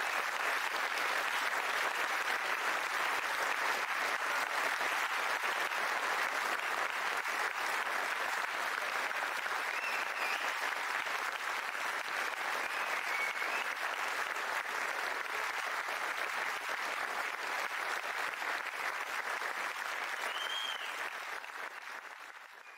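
Audience applauding steadily at the end of a concert band piece, fading out near the end.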